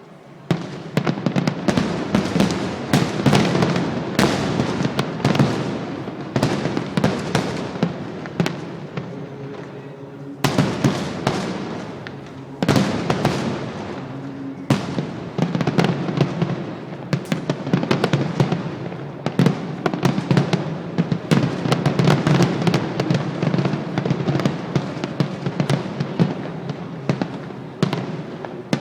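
Fireworks display: a dense, continuous barrage of bangs and crackles, easing briefly around ten and fifteen seconds in before picking up again.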